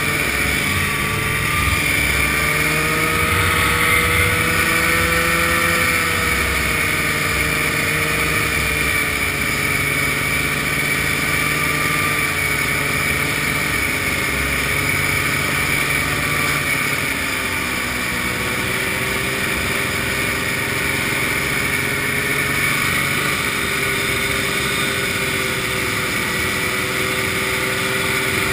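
Vintage snowmobile's two-stroke engine running steadily at cruising speed, with wind and road noise. The engine note eases off slightly about two-thirds of the way through.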